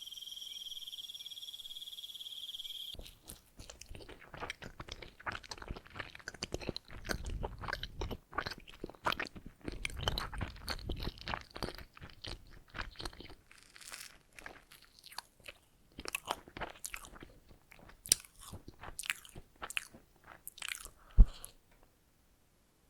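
Close-miked biting and chewing of donuts: a dense run of crunches and mouth clicks, after a steady high tone lasting about three seconds. A single sharp knock near the end is the loudest sound.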